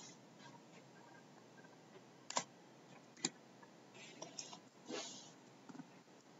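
Faint computer clicks: two sharp clicks a little under a second apart, then a cluster of softer taps, as a file is named and saved with mouse and keyboard.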